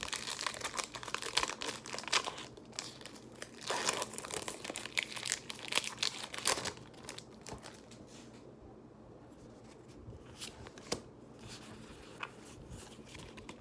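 Foil wrapper of a Pokémon card booster pack being torn open and crinkled by hand, a dense crackling for about seven seconds; after that it goes much quieter, with only a few faint clicks of handling.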